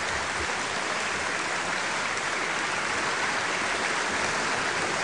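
Members of a parliamentary assembly applauding, a steady, unbroken clapping.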